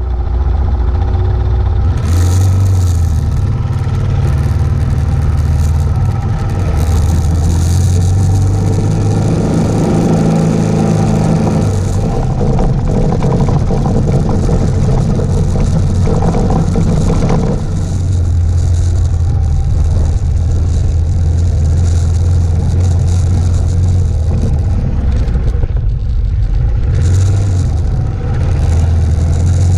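Suzuki DR650's single-cylinder four-stroke engine running under way on a gravel road, its pitch stepping up and down a few times as it is shifted and throttled, with wind rushing over the camera and the rattle of the bike over the rough surface.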